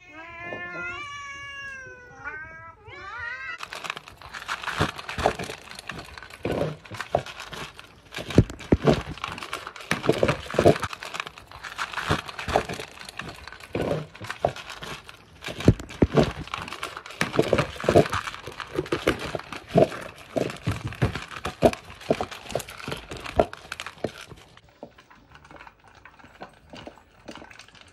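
Domestic cats meowing, several bending calls in the first three seconds or so. Then about twenty seconds of dense clattering, knocking and rustling, which stops near the end.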